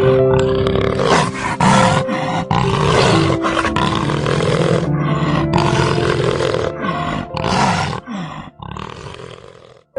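An animal giving several loud, rough calls over background music.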